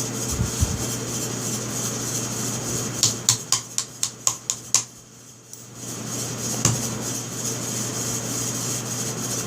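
Steel parts of a Stevens 320 pump shotgun clicking and tapping as it is put back together by hand: a quick run of about nine sharp metallic clicks about three seconds in, then a single click a couple of seconds later, over a steady background hum.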